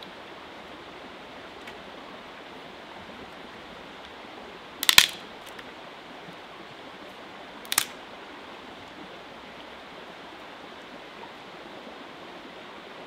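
A small river flowing steadily close by, with dry sticks being snapped by hand for a fire lay: a quick cluster of sharp cracks about five seconds in, the loudest sound, and a single weaker crack nearly three seconds later.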